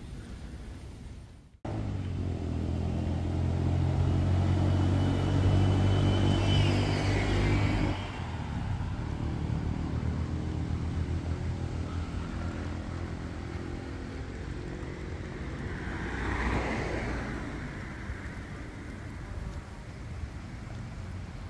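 Road traffic: a vehicle's engine runs loud and close for about six seconds, then drops away. A quieter traffic hum follows, with another vehicle passing by about three-quarters of the way through.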